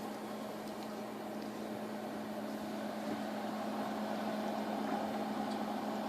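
Steady low hum with an even background hiss, as from a running household appliance or fan, with no distinct events.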